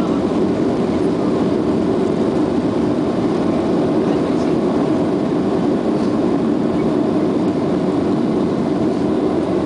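Boeing 737 jet engines at takeoff thrust heard from inside the cabin: a steady, loud rush mixed with the rumble of the wheels rolling down the runway during the takeoff run.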